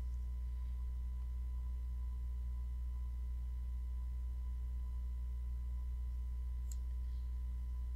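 Steady low hum with a thin, faint high steady tone over it, and a single faint click near the end.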